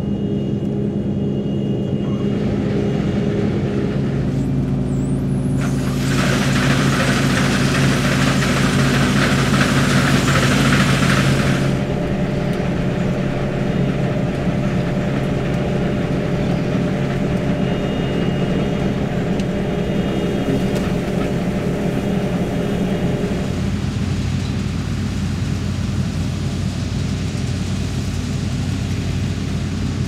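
New Holland TC5.90 combine harvester running under load while harvesting barley, heard from inside the cab as a steady engine and machinery drone. A loud hiss rises over it from about six to twelve seconds in, and the drone's tone shifts about two-thirds of the way through.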